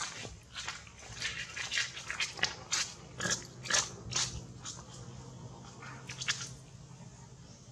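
Quick, irregular crisp clicks and crunches, like chewing, that stop a little over six seconds in, over a faint steady low hum.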